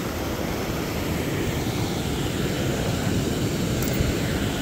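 Steady rushing roar of water pouring over a low dam spillway into a rocky stream.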